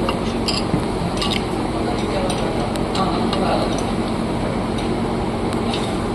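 A steady mechanical hum with a few short, sharp metallic clicks and clinks scattered through it.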